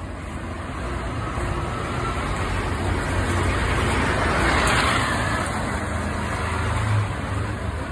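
Scania K410 coach's rear-mounted diesel engine pulling away and passing close by. Its rumble and a rush of noise build to a peak about halfway through, then ease off as it moves away.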